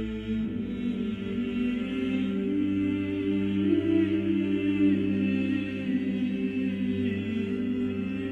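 Slow choral chanting: several voices hold long, sustained notes, and the chord shifts every second or so.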